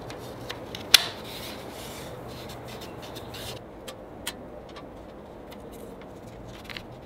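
Small steel nuts clicking as they are set into a table saw's cast-iron miter slots, and thin plywood runners rubbing and tapping as they are laid in the slots on top of them. There is one sharp click about a second in, and lighter ticks later.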